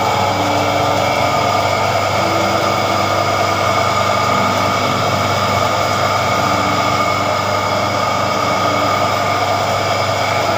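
Electric sugarcane juice extractor's motor running with a steady hum.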